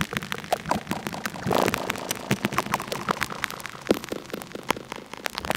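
Make Noise XPO oscillator running at sub-audio rate through a modular synthesizer: an irregular stream of clicks and short pitched pings, several a second, as each slow wave cycle strikes the filters. A denser noisy swell comes about a second and a half in.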